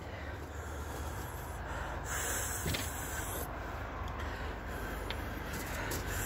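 A man breathing hard and sniffing through the nose against the burn of a Carolina Reaper pepper, with a louder noisy breath lasting about a second and a half, starting about two seconds in, over a steady low rumble.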